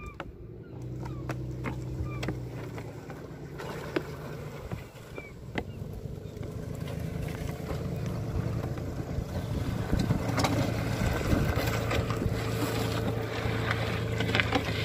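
A motor runs steadily as a rope hauls a pallet of stacked fish crates over the wooden skids and gravel, the dragging noise growing louder in the second half. A few short bird chirps.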